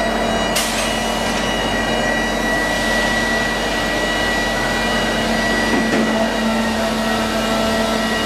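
Automated handling machine for precast concrete products running, a steady mechanical hum with a constant whine. A hiss starts suddenly about half a second in and fades, and a stronger motor hum comes in around six seconds in as the blue handling frame moves over the pallets.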